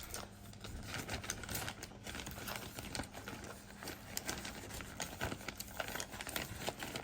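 Plastic MRE packaging crinkling and rustling with small irregular crackles, as the food pouch is handled and pushed into the water-activated flameless ration heater bag.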